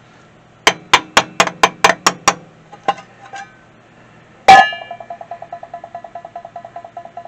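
Hammer blows on a metal installer cup, driving the rear main seal and repair sleeve onto a 5.9 12-valve Cummins crankshaft. There is a quick run of about eight strikes, then two light taps, then one hard ringing blow about four and a half seconds in. After that blow a fast, even buzzing pulse carries on.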